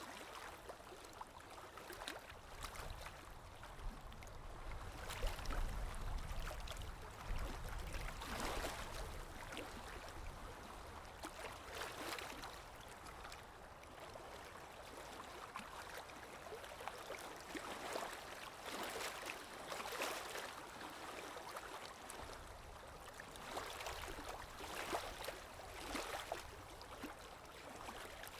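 Small waves lapping, with irregular splashes every second or so, over a low wind rumble that swells in the first third and again near the end.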